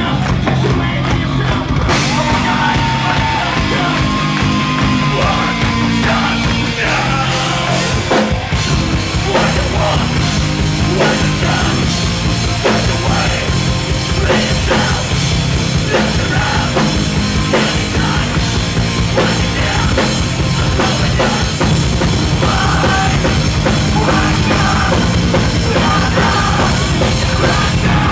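Live rock band playing loud, with electric guitar, bass guitar and a drum kit with cymbals. The sound gets brighter and fuller about two seconds in.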